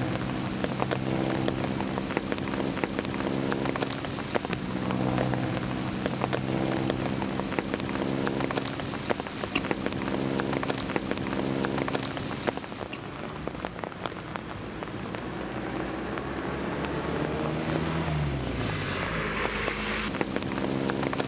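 Steady rain pattering on wet pavement and foliage, a dense spray of drop ticks, over sustained low tones. Near the end a low tone slides downward and the rain hiss swells briefly.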